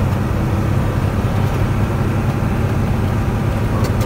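Truck engine running steadily, heard from inside the cab while driving, a low drone with road noise over it.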